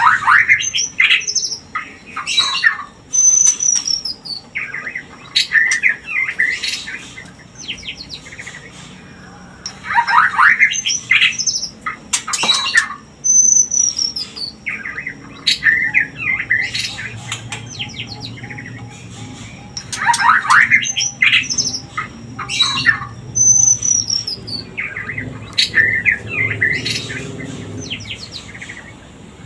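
White-rumped shama (murai batu) mating-lure calls: bursts of harsh, rapid chattering notes mixed with a short falling whistle. The same sequence repeats about every ten seconds.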